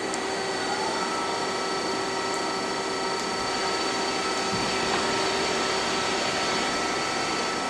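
Large CNC lathe running under power: a steady mechanical hum with several constant whining tones held throughout.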